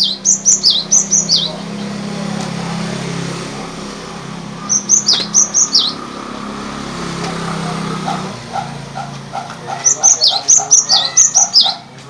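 Cinereous tit (gelatik batu) singing its natural song. Three bursts of quick, repeated high notes, each note sliding down in pitch, are spaced a few seconds apart; the last burst is the longest.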